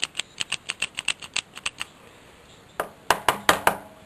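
Small plastic and metal parts of an opened headlight dimmer switch clicking as they are handled and worked: a quick run of light clicks, about seven a second, then, after a short pause, a louder cluster of clacks near the end.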